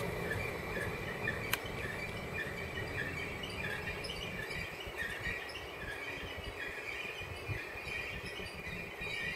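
Low rumble of the LeoExpress electric multiple unit 480.005 creeping into the platform, under a steady high whine and short chirps repeating about twice a second, with one sharp click about a second and a half in.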